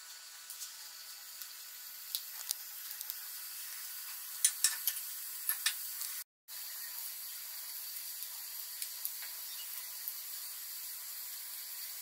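Khoya gulab jamun balls deep-frying in ghee: a steady sizzle with scattered sharp pops and crackles, thickest in the first half. The sound breaks off completely for a moment about halfway through.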